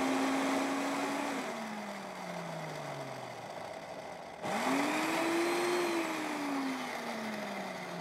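Electric countertop blender beating oil, milk and sugar until the sugar dissolves. Its motor hum holds steady, drops in pitch and winds down about a second in, then starts again suddenly halfway through, rises and slowly winds down once more.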